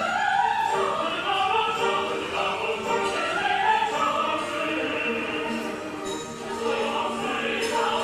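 Operatic choral singing: a choir holding and moving between sustained notes, classical in style.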